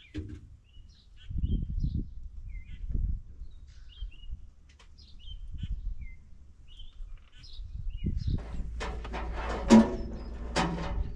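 Small birds chirping now and then over low rumbles. About eight seconds in, a clatter of handling noise starts, with a sharp knock as the loudest moment near the end.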